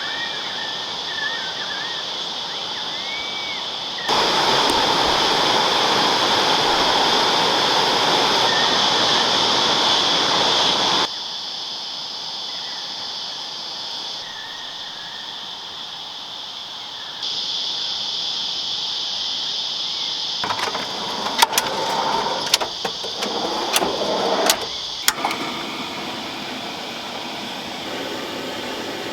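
Flowing river water with a steady high-pitched hum and a few short chirps in the first few seconds, heard across several spliced clips whose loudness jumps at each cut. About two-thirds of the way through comes a run of sharp knocks and clatters.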